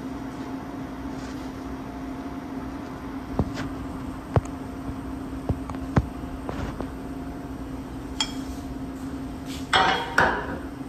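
Scattered sharp metallic clinks and knocks of tire-shop tools and wheel hardware over a steady low hum, with two short louder bursts of noise near the end.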